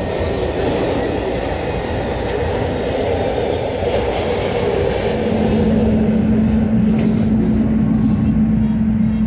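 SEPTA subway-surface trolley car running, heard from inside the car as a steady rumble and rush of rail noise. A steady low hum joins it about halfway through.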